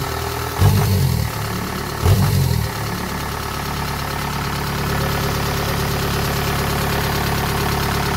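Engine of a Japanese farm machine running, with two brief low surges in the first three seconds, then settling into a steady idle.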